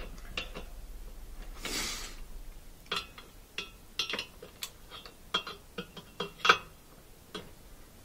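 Socket ratchet clicking in short irregular strokes as the rotor bolt on an LG direct-drive washer motor is tightened, the loudest click near the end. A short whoosh of noise comes about two seconds in.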